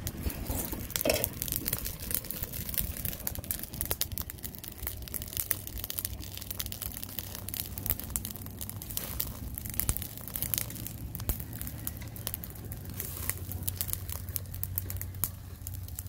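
Charcoal fire crackling in a small clay stove under whole fish grilling on a wire rack: a dense, irregular run of sharp crackles, with now and then the tap or scrape of tongs on the grill.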